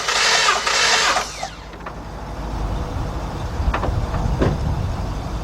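Starter cranking a Jeep Liberty's 3.7 V6 with an even, pulsing beat during a compression test on one cylinder; the cranking cuts off about a second in. A low rumble and two light clicks follow.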